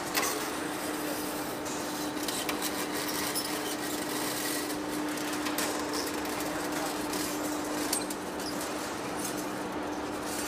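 Heavy-duty face lathe running: a steady hum with scattered light clicks and ticks over an even machine noise.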